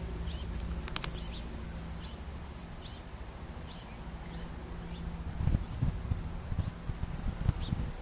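Short, high-pitched squeaking calls repeated about once every three-quarters of a second: a fledgling bird begging for food. A low steady hum fades out over the first half, and irregular low rumbles come in from about five seconds in.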